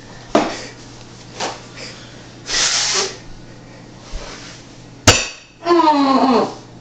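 Kitchen-counter handling: light knocks and clicks, a short rushing burst in the middle, and a sharp clink of glass or crockery about five seconds in. Near the end a person gives a drawn-out, falling-pitch vocal sound.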